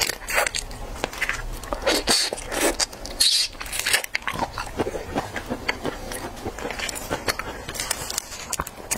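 Close-miked wet chewing, lip smacks and sharp clicking mouth sounds of eating raw sweet shrimp. Near the end, gloved fingers peel a shrimp shell.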